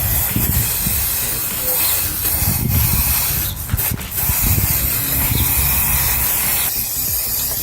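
Aerosol spray-paint can hissing in long, steady spray passes over a bike frame, with two brief breaks about three and a half and four seconds in.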